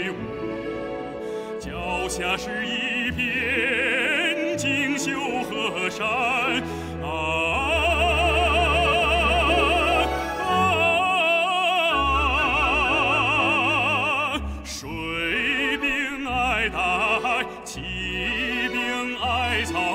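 Background music: classical operatic singing, long held notes with heavy vibrato over instrumental accompaniment, in phrases with short breaks.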